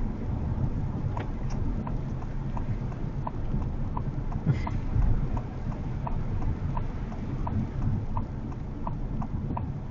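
Steady road rumble inside the cabin of a Honda HR-V e:HEV. From about a second in, a turn-signal indicator ticks evenly, about one and a half ticks a second.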